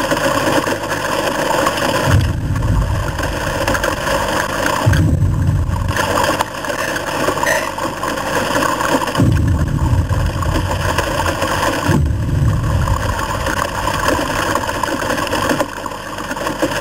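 Steady heavy rain on a car, with about four deep booming thuds a few seconds apart: the film sound effect of an approaching Tyrannosaurus rex's footsteps.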